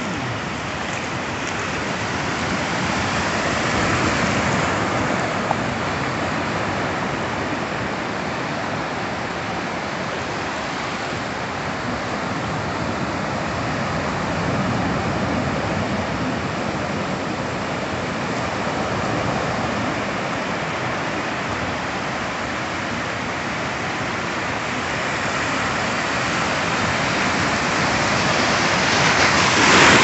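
Ocean surf: waves breaking offshore and foam washing up the sand in a steady rush that swells and eases every several seconds, loudest near the end.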